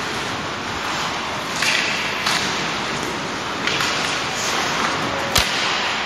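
Ice hockey play on a rink: skates scraping across the ice over a steady hiss, with a single sharp crack about five seconds in.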